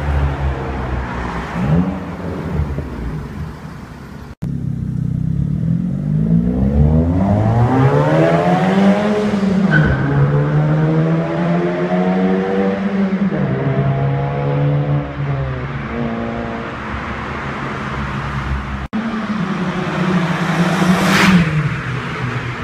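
Opel Corsa C GSi's 1.8-litre 16-valve four-cylinder engine accelerating hard through the gears. Its pitch climbs and then drops at each upshift, and the sound breaks off abruptly twice. A sharp crack comes near the end.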